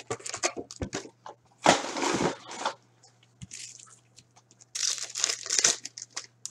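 Plastic wrappers of hockey card packs crinkling and rustling as packs are handled, with short clicks and crackles between two longer bursts about two seconds in and near the end, when a pack is being opened. A faint low hum runs underneath.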